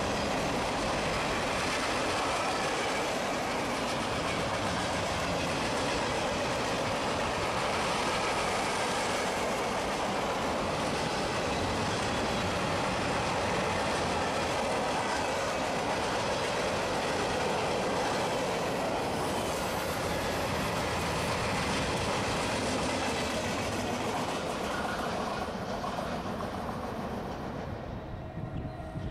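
Mixed freight train of boxcars and gondolas rolling past on the rails, a steady noise of wheels and cars that dies down over the last few seconds as the end of the train goes by.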